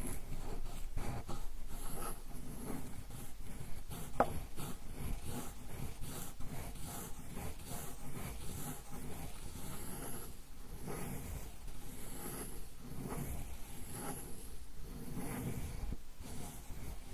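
Ink stick being ground on a suzuri inkstone: steady back-and-forth rubbing strokes of the stick against the wet stone, with a brief sharp click about four seconds in.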